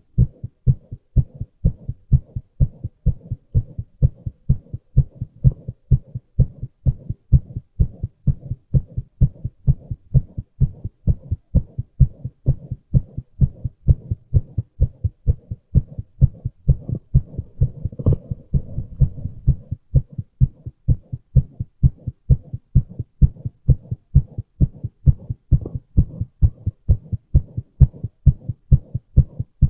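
A man's heartbeat recorded close up: a steady, even rhythm of low thuds. About eighteen seconds in, a brief scuffing noise with a click rises over the beats.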